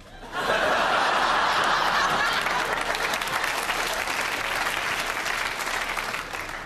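Studio audience bursting into applause about half a second in, holding steady, then tailing off near the end.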